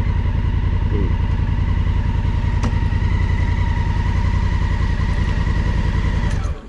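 Honda Africa Twin's parallel-twin engine idling steadily with a thin whine above it, then switched off about six and a half seconds in.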